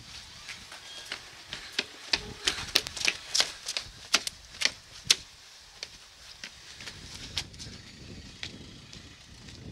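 Footsteps and hands tapping and scuffing on whitewashed masonry steps as a man climbs a steep outdoor staircase: a quick run of sharp, irregular taps, thickest in the first half and thinning out after.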